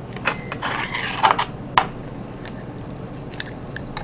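Sharp clicks and scrapes with a short crackly rustle about a second in: fried chicken and chopsticks being handled close to the microphone.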